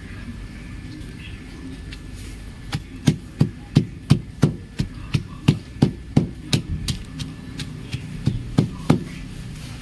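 Chalk being crushed and crumbled: a run of sharp crunches, about three a second, starting about three seconds in and stopping shortly before the end.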